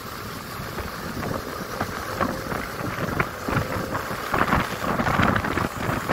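Wind buffeting and rumbling on the microphone of a moving two-wheeler, an irregular noisy rush that grows louder about four seconds in.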